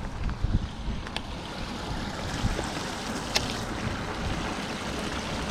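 Outdoor wind rumbling on the microphone, with a few small clicks, the sharpest about three and a half seconds in.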